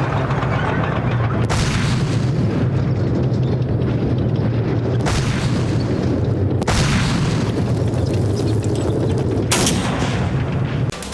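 Cinematic battle sound effects: a dense rumble of explosions and gunfire, with several sudden loud blasts breaking in about 1.5, 5, 6.5 and 9.5 seconds in.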